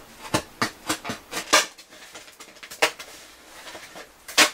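Irregular crackling rustles and clicks as a zombie mask and its elastic are handled and put together by hand, with louder crackles about a second and a half in and near the end.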